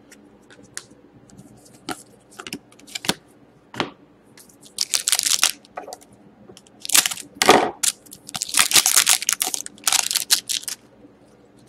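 Small taps and clicks of trading cards being handled, then a pack wrapper of Upper Deck Artifacts hockey cards crinkling and tearing in several loud bursts as it is opened and the cards are pulled out.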